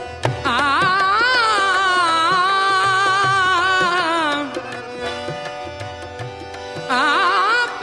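Sufi kafi music: a female singer holds a long, wordless, ornamented sung phrase with wavering pitch over steady accompanying tones and tabla. The voice drops out after about four seconds, leaving the softer accompaniment, and a new sung phrase begins near the end.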